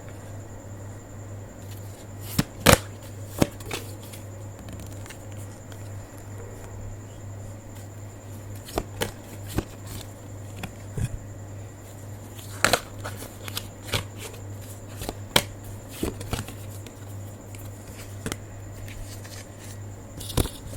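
Tarot cards being handled and shuffled: scattered sharp snaps and taps. The loudest come about three seconds in and about thirteen seconds in.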